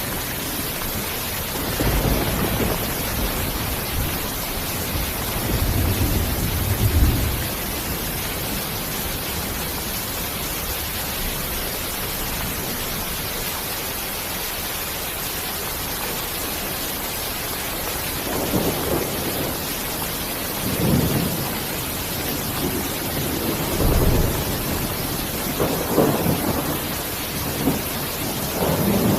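Steady rain hiss with low rolls of thunder: one rumble a couple of seconds in, another around six to seven seconds, then several more rolling through the last ten seconds or so.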